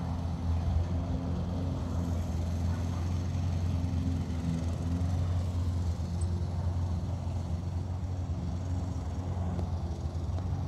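A steady low mechanical hum with a few fainter overtones, unchanging throughout.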